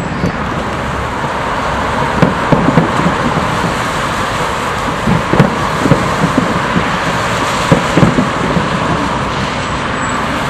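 Fireworks shells bursting: a series of booms and cracks in clusters, over a steady rushing background noise.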